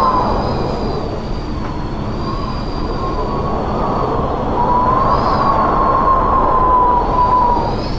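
Strong wind howling: a steady rush with high, wavering whistles that swell and fade, building to a stronger gust in the second half before easing near the end.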